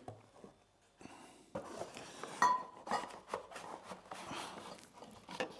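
A glass beer bottle being slid into a cardboard carrier box between its cardboard dividers: soft scrapes and small knocks of glass on cardboard, with a short ringing clink of glass against glass a little after two seconds in. The first second and a half is nearly silent.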